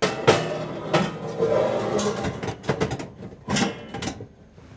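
Covered enamelware roasting pan sliding into an oven on a metal rack: scraping and metal clatter with several sharp knocks.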